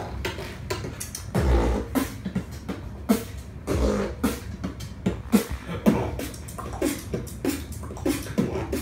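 Human beatboxing without a microphone: a quick, dense rhythm of mouth-made snare snaps and hi-hat clicks, with a few deep kick-drum thumps.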